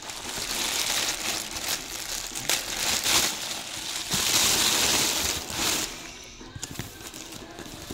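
Thin plastic garbage bag rustling and crinkling as hands handle and open it, with sharp crackles of the plastic. The rustling dies down about six seconds in.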